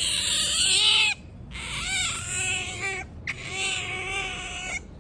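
Otter squealing in three long, high-pitched wavering calls, the first ending about a second in and the others following after short breaks.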